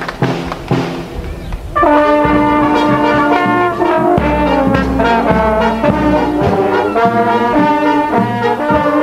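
Brass band music: a quieter opening of low drum strokes, then about two seconds in the brass comes in loudly with held chords over a steady bass beat.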